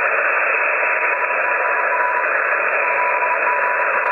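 Receiver band noise on 40 meters from a FlexRadio 6600M HF transceiver: a steady hiss squeezed into a sideband receive filter. A faint broken tone near 1 kHz comes and goes from about two seconds in.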